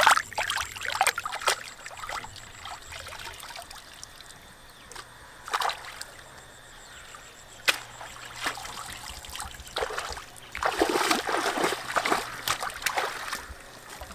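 Hands splashing and swishing in shallow pond water while rinsing fish pieces and a bowl. Scattered short splashes, then a denser run of splashing and sloshing from about ten and a half seconds in.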